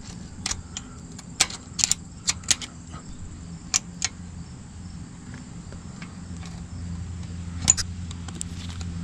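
Light, sharp metal clinks inside a truck's rear differential as the axle C-clip is worked loose and drawn out with a magnet: a cluster of clinks in the first four seconds and one more near the end, over a low steady hum.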